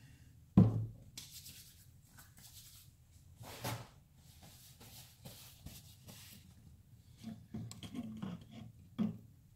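Hands being rubbed and wiped clean with rubbing alcohol, in several short scrubbing passes, with a sharp knock about half a second in and another near the end.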